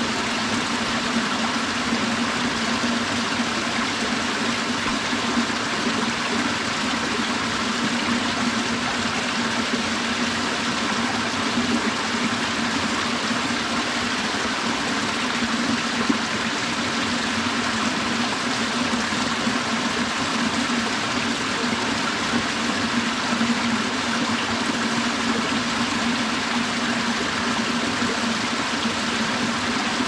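Mountain valley stream flowing, a steady, even rush of water.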